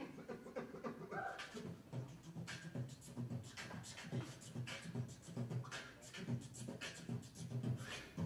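Beatboxer into a handheld microphone, laying down a steady hip-hop beat of low kick-drum thumps and sharp snare and hi-hat clicks, starting abruptly.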